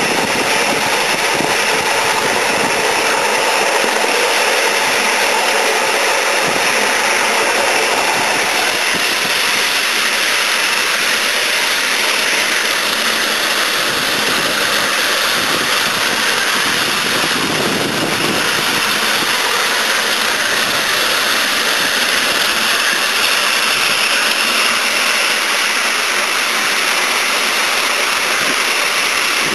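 Ride-on live-steam model of a Peppercorn A1 Pacific running, with a loud, steady rushing hiss of steam.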